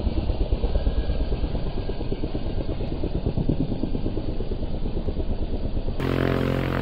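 Light aircraft's piston engine running at low power, with a rapid, even throb. About a second before the end the sound switches abruptly to a steadier, even-pitched engine hum.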